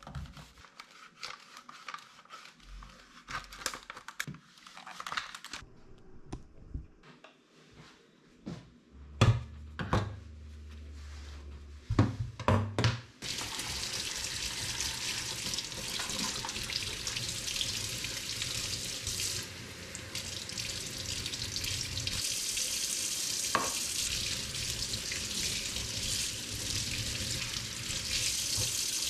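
A few light knocks and clatters of things being handled, then about thirteen seconds in a tap is turned on and runs steadily into a sink, with water splashing as something is rinsed under it.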